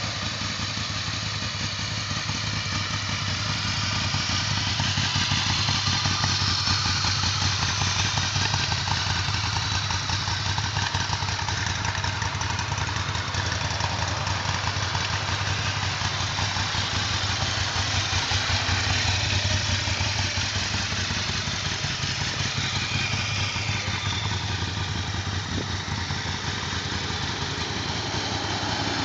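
2012 Ducati Monster 1100 Evo's air-cooled L-twin engine idling steadily.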